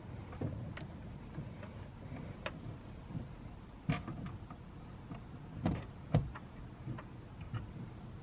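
Scattered plastic clicks and knocks as a car-audio speaker is handled and pressed into a plastic adapter ring in a car door. The loudest knocks come about four seconds in and twice around six seconds.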